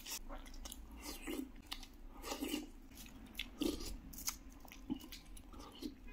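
Close-up biting and chewing of a crispy egg pancake wrap: irregular crunches and wet mouth sounds.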